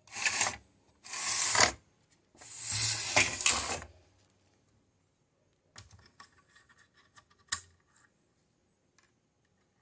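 Three bursts of rustling handling noise in the first four seconds, then faint scraping clicks and one sharp click near the end as fingers twist loose the threaded cap of an amplifier's panel-mount fuse holder.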